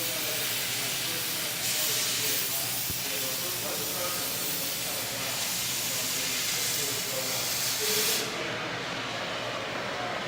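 Oxy-acetylene cutting torch hissing steadily as its oxygen jet cuts through a piece of metal. The sharp high hiss cuts off suddenly about eight seconds in, leaving a softer rushing from the flame.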